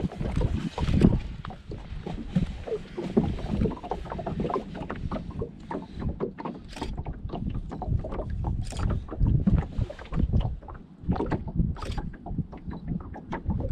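Water lapping and slapping against the hull of a small boat, with wind buffeting the microphone and scattered knocks and clicks from movement in the boat.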